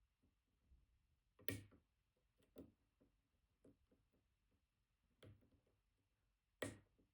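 Faint metal clicks of a dimple pick working the pins inside a BKS Janus high-security dimple lock cylinder, about five separate ticks with the sharpest two about a second and a half in and near the end.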